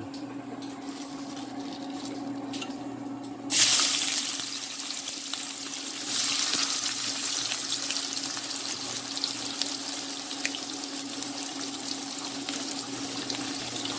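Chopped onion and ginger dropped into hot cooking oil in a stainless steel wok, sizzling. The sizzle starts suddenly and loud about three and a half seconds in, surges again around six seconds as more is added, then carries on steadily over a low steady hum.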